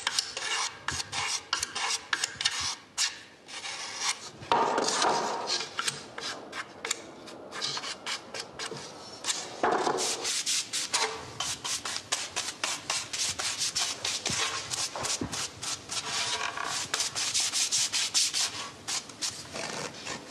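Hand filing and sanding of a wooden accordion body: rapid back-and-forth strokes of a file and an abrasive block scraping over the wood, several strokes a second.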